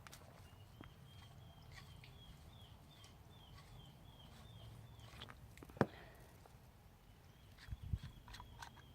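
Faint, evenly repeated short chirps of a bird, about two a second, pausing briefly and picking up again near the end. A sharp click or knock just before six seconds in.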